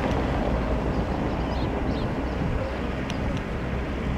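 Small open fishing boat's engine running at low speed as the boat motors slowly, a steady low hum.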